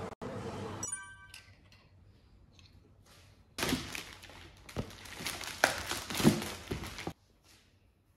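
Plastic courier mailer bag being cut open with scissors and handled: loud crinkling and rustling with sharp snips, lasting about three and a half seconds and stopping abruptly. Before it, a brief steady hum cuts off within the first second.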